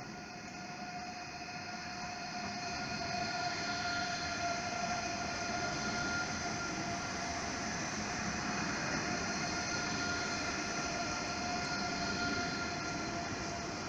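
An ICE 3 high-speed trainset pulls slowly into a station platform, with a steady whine of several held tones over the rolling noise. The sound grows louder over the first few seconds as the train draws alongside.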